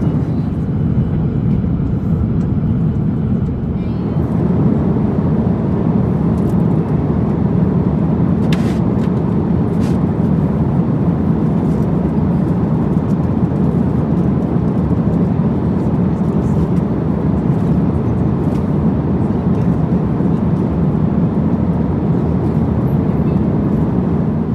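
Airbus A350-900 airliner cabin noise: a loud, steady low rumble of engines and airflow, with a couple of faint clicks about nine and ten seconds in.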